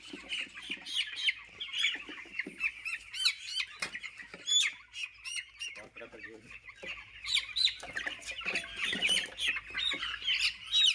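A large flock of young chicks peeping nonstop, many short high chirps overlapping.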